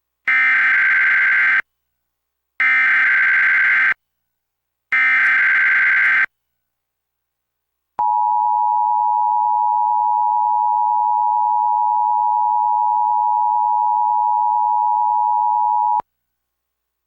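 Emergency Alert System SAME header: three identical squawks of digital data tone, each about a second and a half long, followed a couple of seconds later by the EAS two-tone attention signal, held steady for eight seconds and cut off sharply. It is the opening of a Required Monthly Test alert.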